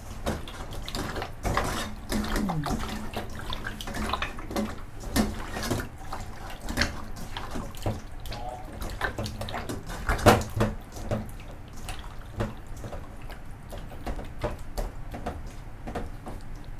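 A hand squishing and turning raw chicken wings in a wet marinade in a stainless steel bowl, making irregular wet squelches and slaps, with one sharper knock about ten seconds in.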